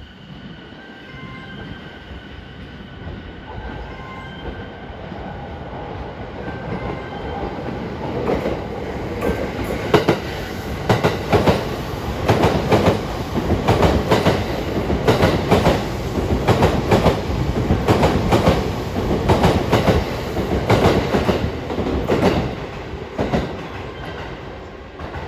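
E261 series Saphir Odoriko electric limited express passing through a station, its wheels clattering over the rail joints. A rumble builds as it nears, then comes a long run of paired clacks as the bogies cross each joint, fading near the end as the last car goes by.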